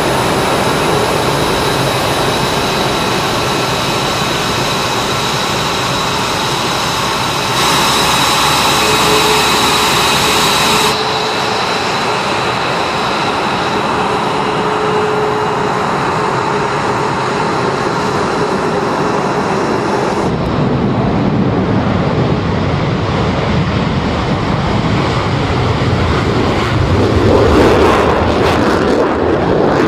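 F-22 Raptor's twin F119 turbofan engines running with a steady high whine while the jet sits and taxis, the sound jumping abruptly where the clips change. Near the end a deep, louder roar builds as a Raptor takes off at full thrust.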